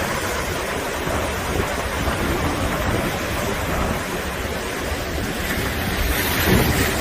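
Storm waves surging and crashing over a seawall in typhoon conditions, with strong wind buffeting the microphone in a steady, dense rush.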